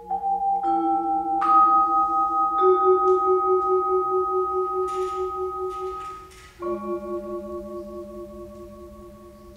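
Vibraphone notes and chords struck with mallets and left to ring together, the held tones pulsing evenly. A few single notes come near the start, then a new chord about two-thirds of the way through, its ring dying away slowly.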